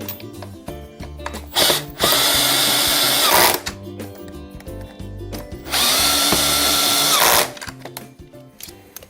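Power drill driving chair-assembly bolts through a cut-down Allen-wrench bit, run twice: a short blip then about a second and a half of steady whine, and after a pause a second run of similar length, each winding up and down.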